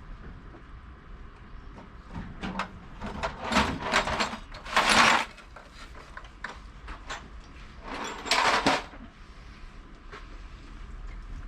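Tool cart drawer being worked loose and pulled out: scattered clicks and clunks, then a loud sliding rattle about five seconds in and another just after eight seconds.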